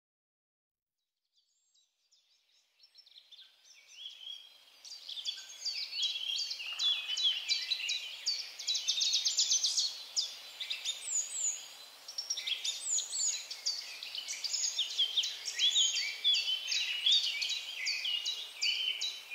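Songbirds chirping and singing, several at once in dense rapid runs of short falling notes, fading in over the first few seconds.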